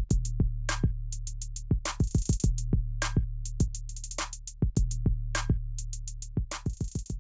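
Electronic background music with a drum-machine beat over a steady low bass.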